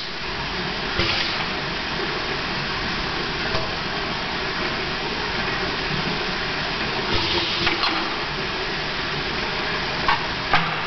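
Crandall FA1/25PTX sub-surface pail filler filling a plastic pail: a steady rush of liquid into the pail, broken by a few short hisses and clicks from the air-operated valves, two of them near the end as the fill lance rises out of the full pail.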